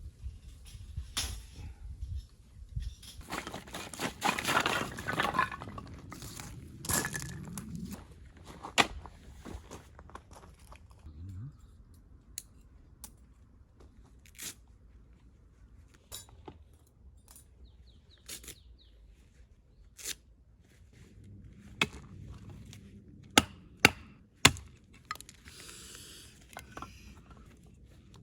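Food-preparation handling sounds. There are a few seconds of tearing and rustling, as of packaging being opened, then scattered sharp clicks and knocks of utensils and food, with a few loud knocks near the end.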